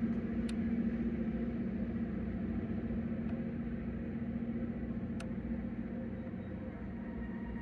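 Freight train rolling past, a steady low rumble with a diesel-engine hum that slowly fades. Two short clicks, about half a second and five seconds in.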